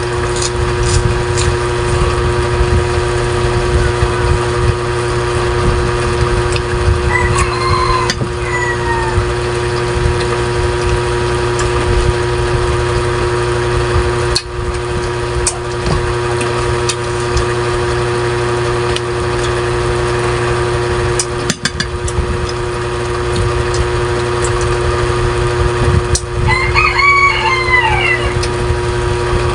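A rooster crows twice, once about seven seconds in and again, more strongly, near the end, over a steady mechanical hum with a low rumble.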